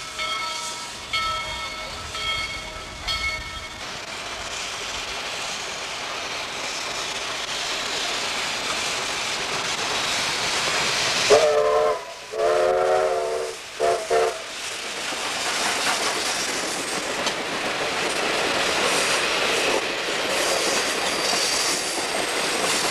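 A train rolling along the track with wheel clatter that grows louder. About eleven seconds in, the locomotive sounds a chord-like signal in three blasts: short, long, short. In the first few seconds a ringing tone repeats about once a second.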